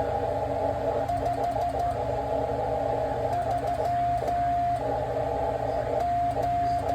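Morse code (CW) on the 20-metre amateur band from a ham radio transceiver: a single steady mid-pitched tone keyed on and off in dots and dashes. Band noise hisses through the radio's narrow CW filter between the elements.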